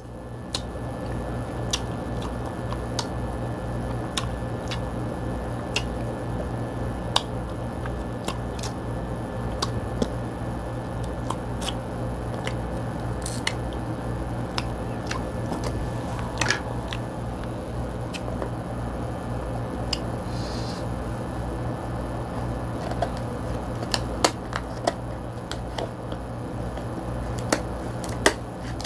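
Cooked king crab shell being picked apart by hand and eaten: scattered sharp clicks and cracks of shell, about one a second and thicker near the end, where kitchen scissors snip through the shell, over a steady low hum.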